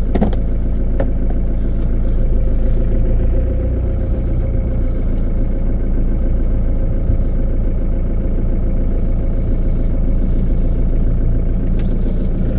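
Van engine running steadily, with a couple of light clicks in the first second.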